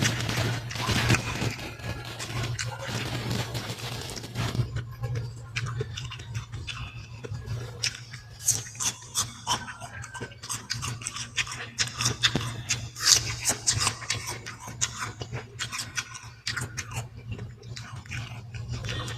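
A person chewing and biting into fruit: many short, irregular crunching clicks, over a steady low hum.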